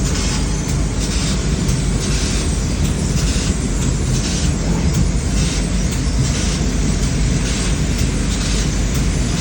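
6 kW CNC laser cutting machine running: a loud, steady rumble overlaid with repeated hissing surges, one every half second to a second or so.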